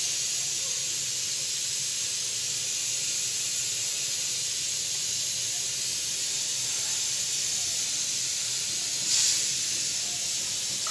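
A steady high hiss, with a brief louder swell of noise about nine seconds in.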